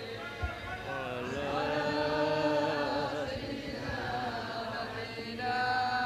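A group of voices chanting a salawat, blessings on the Prophet, together in a mawlid. The long held notes waver in melisma, and a new phrase starts about five seconds in.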